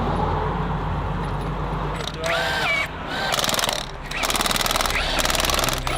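Impact wrench hammering on wheel lug nuts in two bursts, a short one about halfway through and a longer one of about two seconds near the end, over the steady low idle of a truck engine.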